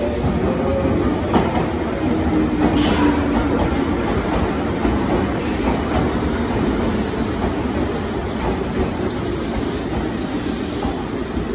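Red Meitetsu 6000 series electric train pulling in alongside the platform and slowing, its wheels rumbling and clattering over the rails, with a faint high brake squeal near the end.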